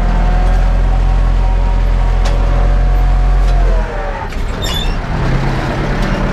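Ursus 914 tractor's diesel engine running steadily under load, heard from inside the cab; a little over halfway through its note drops and turns rougher and quieter, with a few clanks and a brief metallic squeal from the tractor and disc harrow.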